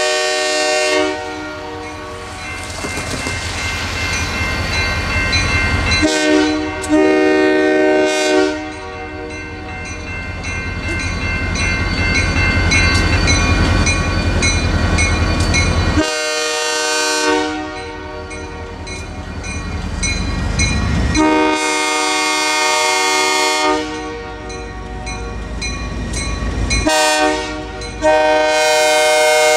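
A diesel locomotive's multi-note air horn blows a series of long blasts for a grade crossing as the train approaches, with five blasts spaced several seconds apart. Between the blasts are a low rumble and the crossing signal's bell ringing.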